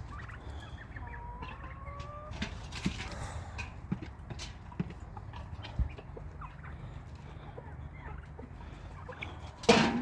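Backyard poultry flock, chickens and turkeys, clucking and calling over a steady low rumble, with scattered short knocks and a louder sudden sound near the end.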